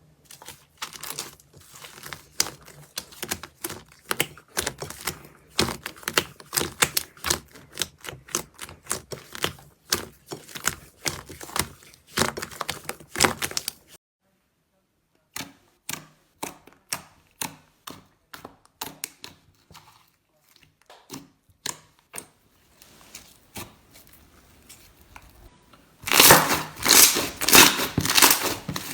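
Slime being squeezed and poked by hand, making a rapid run of small sticky pops and crackles. After a short break the pops come more sparsely, and near the end a much louder, dense crunching begins.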